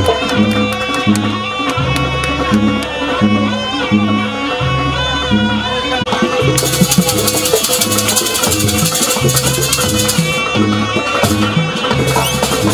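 Loud traditional jaranan ensemble music: a repeating drum pattern under a steady drone and a wavering melody. A bright, hissing rattle joins for a few seconds about halfway through and returns near the end.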